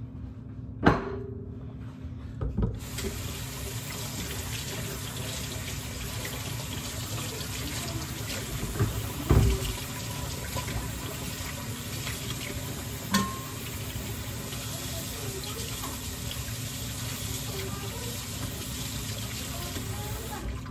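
Kitchen sink tap turned on about three seconds in and running steadily into the sink, with a few knocks and clatters of things handled at the sink. It shuts off at the very end.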